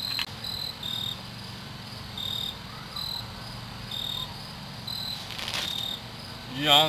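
A cricket chirping in short, high, single-pitched chirps, repeated irregularly every half second to second and a half. Just before the end a loud held pitched sound cuts in.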